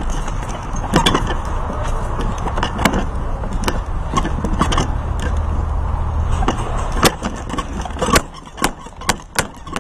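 Rumbling handling noise from a strapped-on camera as its wearer moves. Sharp clicks and knocks come at irregular intervals, with several in quick succession near the end.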